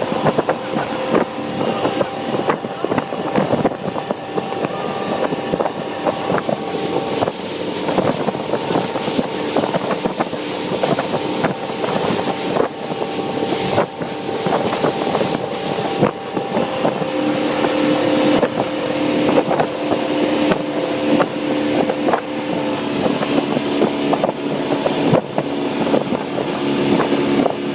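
Motorboat engine running under way, a steady drone with wind buffeting the microphone and frequent short knocks. The engine note shifts lower a little past halfway.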